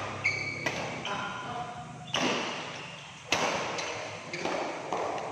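Badminton rally in a sports hall: several sharp racket hits on the shuttlecock, the loudest about two and three seconds in, each ringing on in the hall's echo. Between them, sneakers squeak briefly on the court floor.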